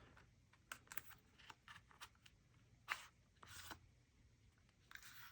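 Faint, scattered light clicks and soft rustling of a leather wallet and its packaging being handled, with a sharper click about three seconds in.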